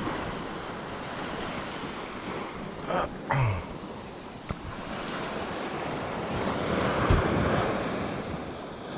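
Ocean surf washing on the beach, with wind buffeting the microphone; the wash swells about seven seconds in. A brief, short sound about three seconds in.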